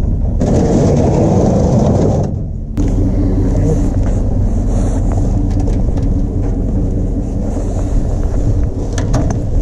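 Pickup truck on the move: a steady low engine drone and road rumble, with a louder rushing noise lasting about two seconds near the start.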